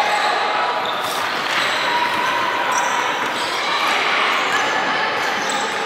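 Basketballs bouncing on a hardwood gym floor amid a steady, echoing din of voices in a large hall.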